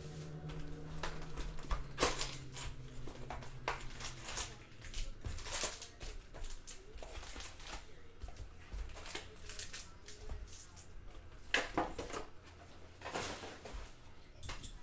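Packs of 2014-15 Donruss basketball cards being ripped open by hand: irregular crinkling and tearing of wrappers and rustling of cards, in short scattered bursts.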